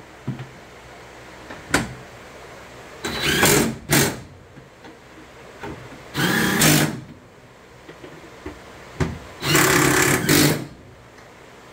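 Cordless impact driver hammering in three short bursts, the last about a second long, running fasteners down into a pickup truck bed, with a couple of sharp clicks between them.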